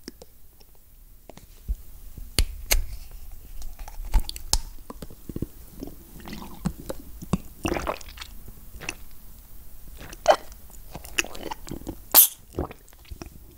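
Close-up drinking from a soft plastic bottle held to the lips: wet sips, swallows and mouth clicks, with the plastic crackling as the bottle is gripped and squeezed. The sharp sounds come in irregular bursts after a quieter first second or so, with one louder burst near the end.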